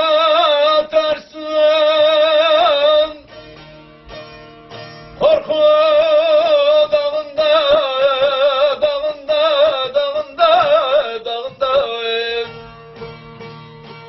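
Turkish folk music: a bağlama (saz) played under a man singing long, wavering held notes. The voice drops out about three seconds in and again near the end, leaving the saz on its own, quieter.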